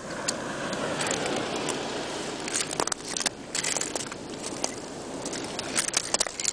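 Atlantic surf washing on the beach, a steady rushing noise that swells in the first couple of seconds, with scattered short crackling clicks in two clusters, around the middle and near the end.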